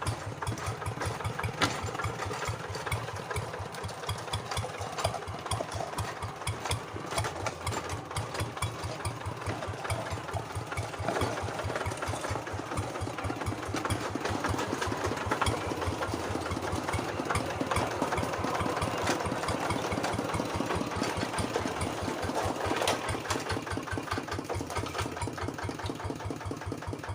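Two-wheel hand tractor's diesel engine running steadily, with a rapid, even beat of firing pulses.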